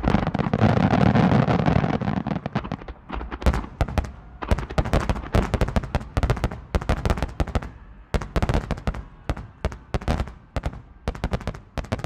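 Fireworks display with many shells bursting in quick succession: a dense, loud rumbling barrage for the first two seconds, then rapid overlapping bangs and crackles.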